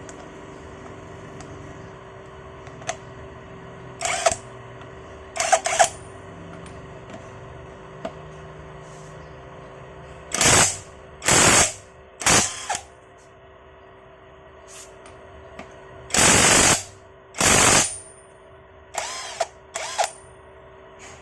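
XTitan cordless impact wrench with a 21 mm socket hammering in about ten short bursts, from a blip to nearly a second each, with pauses between them, as it works a nut loose.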